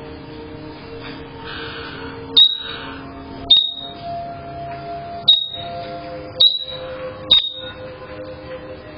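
Caique parrot giving five sharp, piercing high calls, each short and well spaced, over soft background music.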